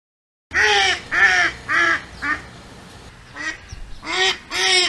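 Duck quacking: four quacks in quick succession starting about half a second in, then after a pause of about a second three more.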